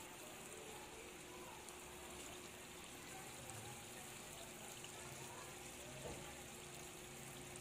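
Faint, steady sizzle of corned beef with diced potatoes and onions frying in a pan, with one soft knock about six seconds in.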